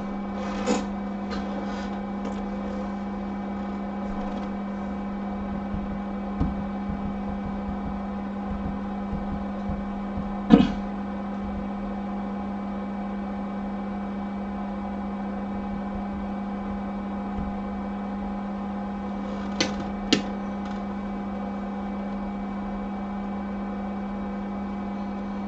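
Steady electrical hum from running bench equipment, a low tone with evenly spaced overtones. A few light clicks and taps break in: one just after the start, the loudest about ten seconds in, and two more near twenty seconds.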